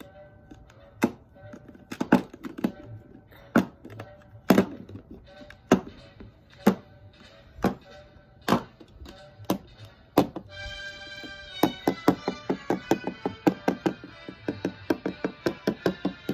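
Background music with plastic toy figures knocked on a wooden floor: loud single knocks about once a second. About ten seconds in, the music thickens and the knocks turn into a quick run of clicks, several a second.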